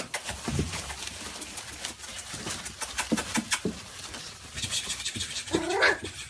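Teacup pinscher puppies scrambling through shredded newspaper, the paper rustling and crackling, with one short high cry from a puppy, rising and falling, near the end.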